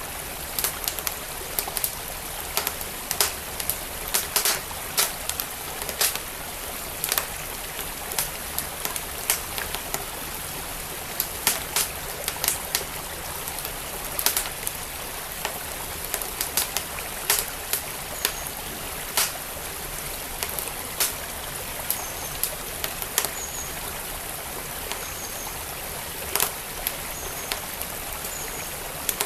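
Wood fire crackling and popping with irregular sharp snaps over the steady rush of a flowing creek.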